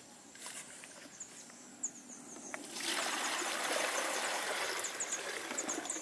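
Water poured from a calabash into a plastic basin: a steady pour starting about halfway in and lasting about three seconds.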